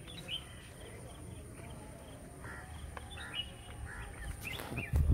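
Outdoor ambience: small birds give short, scattered chirps over a low steady rumble, with a brief louder noise just before the end.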